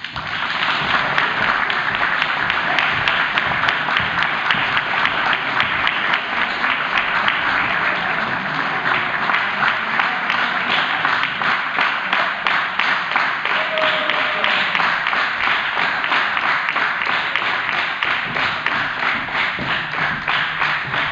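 Crowd applause: a choir and audience clapping together in a steady, dense patter that starts as the speech ends.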